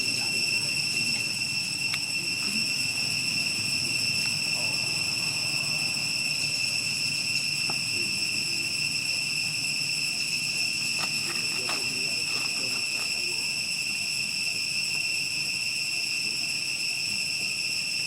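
Insects droning steadily on one unbroken high pitch, with a faint low murmur and a few soft clicks beneath.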